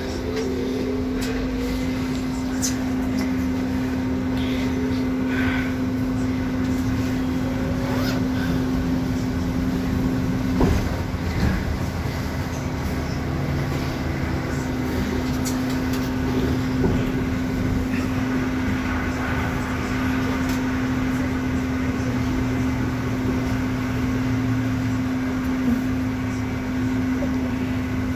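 Trolleybus cabin while riding: a steady electric hum runs throughout, with a short rising whine at the start and scattered knocks and rattles from the moving vehicle.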